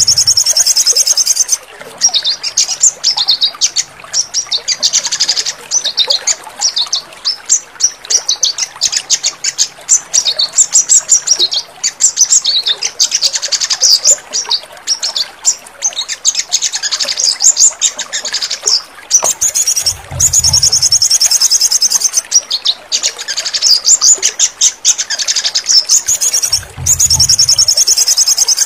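Sogon (sunbird) song: rapid, high-pitched chirping and trilling phrases that repeat with brief gaps. This kind of recording is played to stimulate caged birds that have stopped singing. Two short low rumbles come in about two-thirds through and again near the end.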